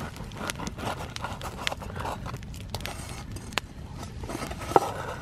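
Knife cutting and scraping through the crisp crust of a brioche baked in a camp pot, with scattered sharp crackles over a low steady rumble.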